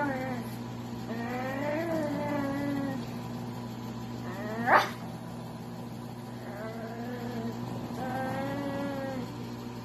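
Small fluffy dog giving a series of drawn-out whining howls, each a second or two long, rising and falling in pitch, with one short, sharp, rising high squeal about halfway through, the loudest sound.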